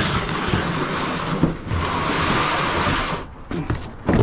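Loud rustling and scraping as a heavy box is handled and dragged out, stopping after about three seconds, with a few light knocks near the end.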